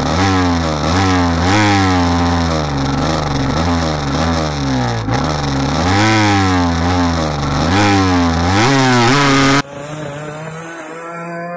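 Cagiva Mito 125 two-stroke single-cylinder engine at full throttle, recorded on board: the pitch climbs, drops back at each gear change, and climbs again, over and over. About nine and a half seconds in, it cuts suddenly to the same kind of engine revving more quietly.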